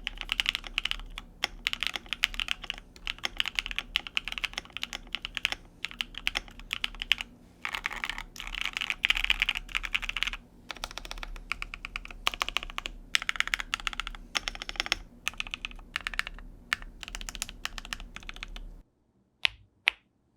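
Typing on a CannonKeys Savage65 aluminium-cased mechanical keyboard with lubed and filmed Cherry Blossom switches and PBT keycaps: runs of fast keystrokes broken by short pauses. The typing stops near the end, followed by two single key clacks.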